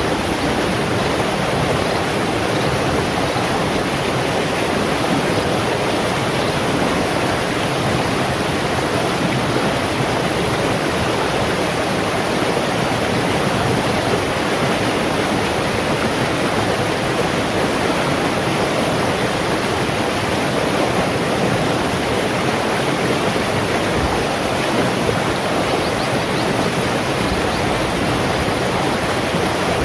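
Shallow rocky stream rushing over and around stones in small rapids, a steady, even rush of water.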